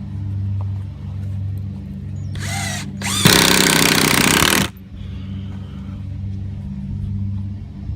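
A power drill runs twice: first a brief rising whine, then a louder run of about a second and a half. A steady low hum continues underneath.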